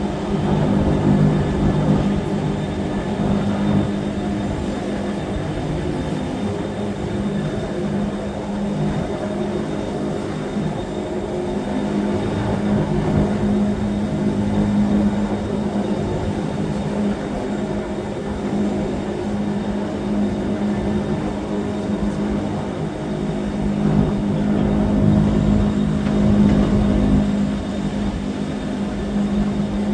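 Electric rack-railway train of the Wengernalpbahn running steadily, a continuous hum with a strong low tone, swelling slightly near the end.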